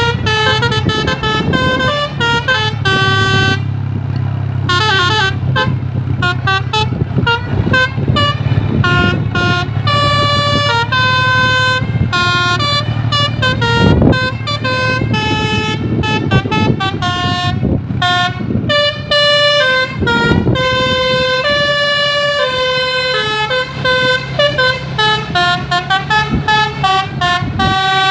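Tunggal Jaya 'Kids Panda' bus's telolet basuri musical air horn playing a quick stepping melody of several notes again and again, over the steady low hum of the bus's engine.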